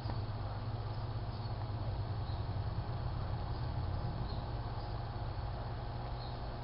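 Steady low hum with faint, short high-pitched chirps repeating about once a second.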